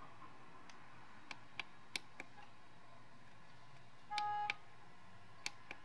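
Push buttons on an iMAX B6 LiPo balance charger being pressed, giving several short clicks, with the charger's buzzer sounding one beep of about half a second around four seconds in, while the charge settings are stepped through.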